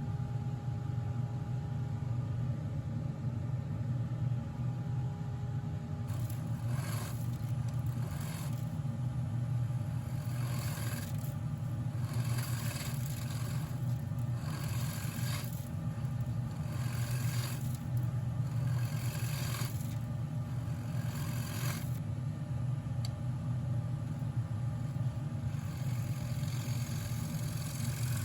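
Woodworking lathe running with a steady motor hum. Through the middle stretch something is pressed repeatedly against the spinning wood, scraping in short strokes about once a second, with more scraping near the end.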